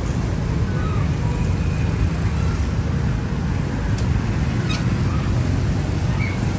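Busy street ambience: a steady rumble of passing traffic with faint voices.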